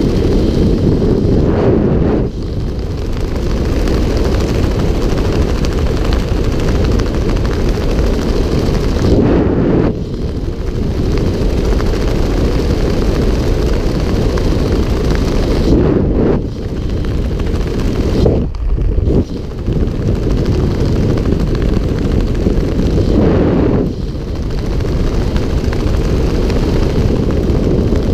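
Wind rushing over a GoPro camera's microphone during a skydiver's descent under parachute: a loud, steady low rumble that swells and eases every several seconds.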